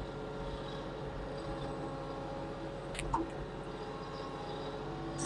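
Compact tractor engine running steadily, with a single sharp click about three seconds in.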